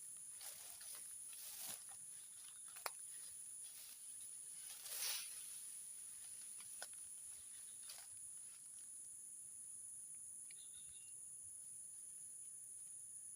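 Steady high-pitched drone of a swamp insect chorus, with a few brief rustling swishes and sharp clicks in the first half.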